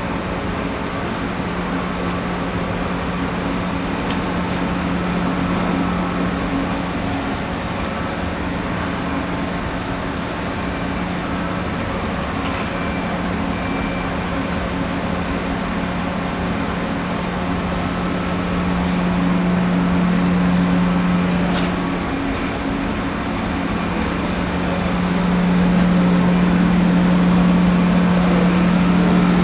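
Steady hum of running industrial machinery: a constant low drone with a fainter tone above it over a hiss, swelling a little twice in the second half.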